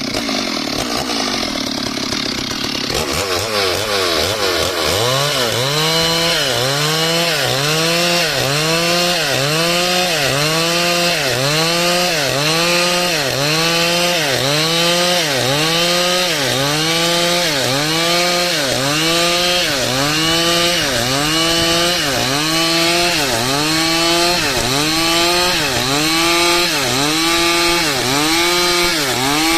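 Stihl chainsaw cutting through dry wood under throttle. It runs steadily for the first few seconds; from then on the engine note dips under load and recovers about once a second as the bar is rocked through the cut.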